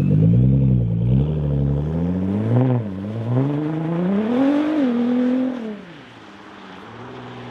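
Nissan GT-R's twin-turbo V6 revving up and down several times, climbing highest about two-thirds of the way through. It then drops back to a steady, quieter idle.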